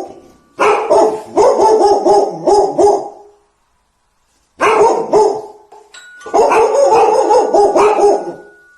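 A dog barking in quick runs: three bursts of rapid barks separated by short pauses.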